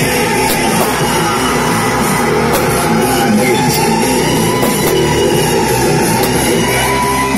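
Loud rock music with singing, steady throughout.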